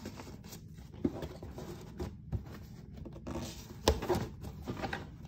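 Fabric ribbon being pulled and slid off a cardboard gift box: light rustling and scraping against the board, with a few small taps, the sharpest about four seconds in.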